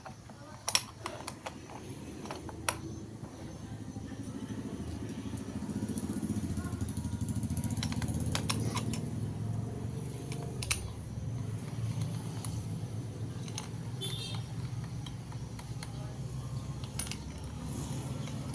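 Scattered sharp metallic clinks and taps, as of small metal parts being handled and set down, over a steady low rumble that grows louder a few seconds in.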